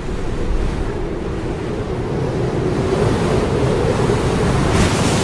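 Wind blowing: a steady rushing noise with a low rumble, turning hissier near the end.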